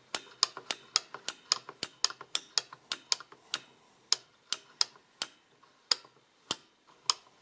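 Mechanism of an Add-em toy adding machine clicking as its button is worked by hand, the pull stepping the number wheels tooth by tooth. Sharp metallic clicks come about four a second at first, then slower and more spaced out in the second half.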